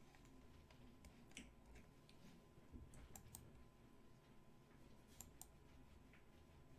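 Near silence with a few faint computer clicks: one at about one and a half seconds, a quick pair about three seconds in and another pair about five seconds in.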